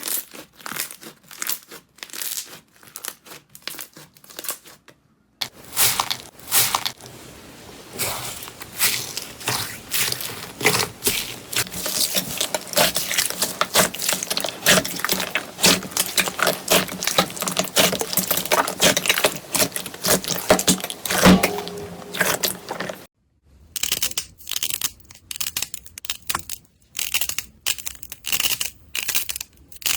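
Slime being squeezed, poked and pressed by hand, giving a rapid run of crackling, popping clicks. It comes in three stretches, broken by a short silence about five seconds in and another near the end.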